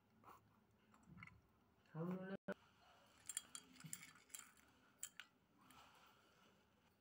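Faint clicks and crackles as dry instant noodles crumble into a miniature aluminium pot and a small utensil touches the metal. A brief hum of a voice comes about two seconds in.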